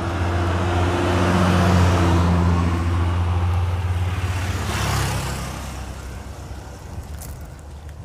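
Road traffic passing close by. A vehicle's engine hum and tyre noise build to a peak about two seconds in and fade away, and a motorcycle goes by around five seconds in.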